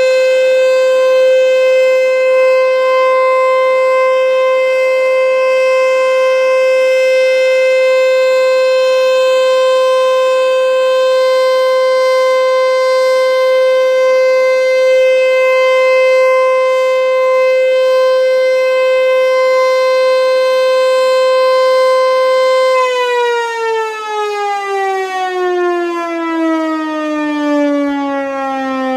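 Federal Signal Eclipse 8 outdoor warning siren sounding a loud steady full-alert tone with an airy, rushing edge. About six seconds before the end it begins winding down, its pitch falling steadily.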